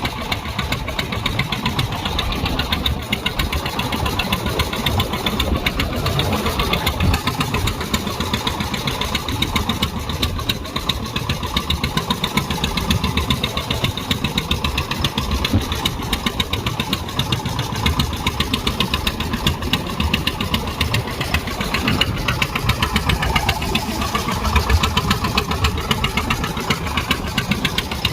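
A fishing boat's engine running steadily with a fast, even chugging beat.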